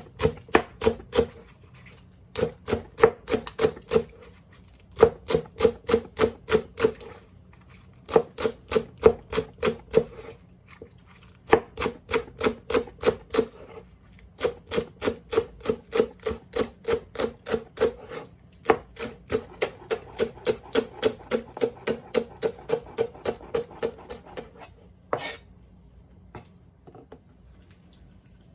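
Kitchen knife chopping steadily on a cutting board, about four to five strokes a second in runs of a couple of seconds with short pauses. The chopping stops near the end, followed by one louder knock.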